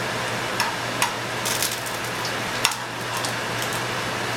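Tortilla frying in hot oil in a skillet: a steady sizzle, with a few sharp clicks and taps of a utensil against the pan as the shell is turned and folded.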